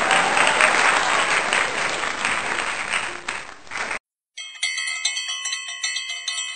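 Crowd applause that cuts off about four seconds in. After a brief gap, a bright bell-like chiming jingle with a quick, even rhythm follows: the sound effect of a subscribe-button animation.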